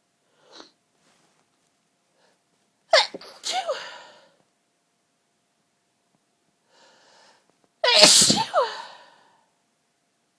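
A person sneezing twice during a sneezing fit, about five seconds apart. Each sneeze is preceded by a faint intake of breath, and the second sneeze is the louder and longer of the two.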